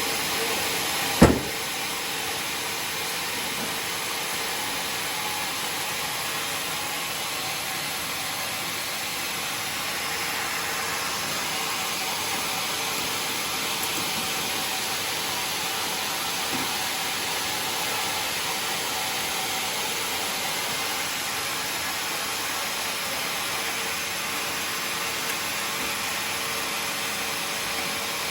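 Homemade sawmill running steadily with an even hiss-like noise, and one sharp knock about a second in.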